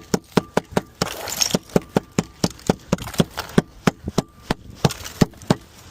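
A quick string of sharp taps and knocks, about four to five a second with a couple of short pauses, as a hand tool chips at the ice frozen on the roof edge.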